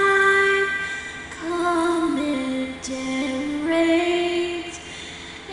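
Background music: a slow melody of long held notes stepping up and down, sung by a female voice.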